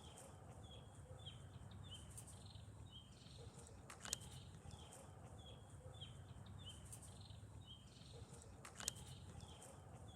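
Faint bird song: a phrase of short chirping notes that repeats about every five seconds. Two sharp clicks come about four and nine seconds in, over a steady low rumble.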